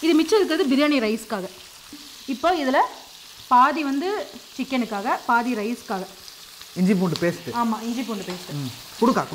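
Sliced onions frying in hot oil in an aluminium kadai, stirred with a spatula. Over the frying come repeated pitched, wavering sounds, louder than the frying itself.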